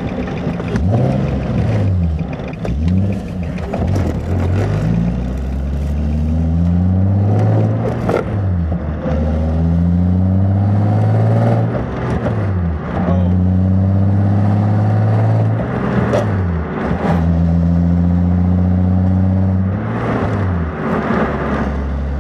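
Nissan 350Z's 3.5-litre V6 pulling through the gears: its note climbs, drops sharply at each shift, then holds steady while cruising, over and over. Heard from inside the car, with a few short sharp knocks along the way.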